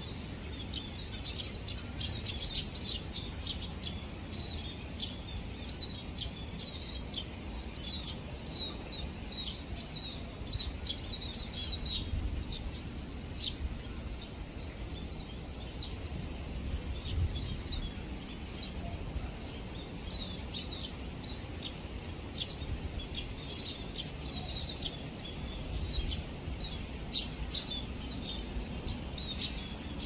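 A flock of scaly-breasted munias calling together, with many short, high chirps overlapping in a busy chatter. Under them is a steady low background rumble.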